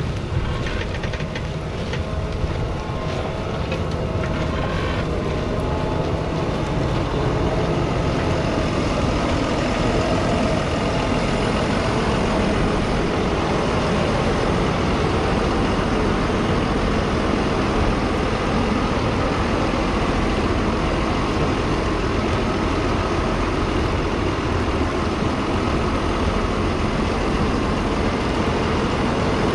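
McCormick X7.621's 6.7-litre six-cylinder diesel engine running steadily under load while the tractor pulls a five-furrow reversible plough, growing louder over the first several seconds as it comes closer, then holding steady.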